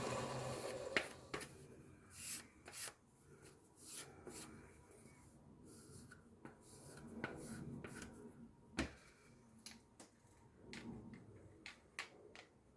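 Quiet handling sounds of a freshly sharpened garden tool: soft rubbing and scattered sharp clicks as the tool is handled and its edge is felt, with one louder click near the middle.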